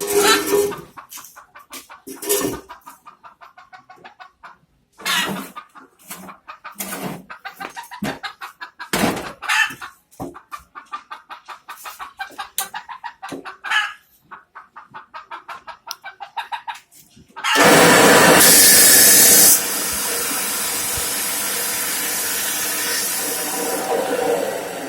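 Chickens clucking in short, irregular calls. About two-thirds of the way through, a loud, steady noise starts suddenly and carries on to the end.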